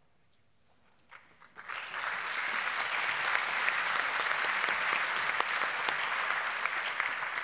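Audience applauding: faint for about the first second, then the clapping builds quickly and holds steady.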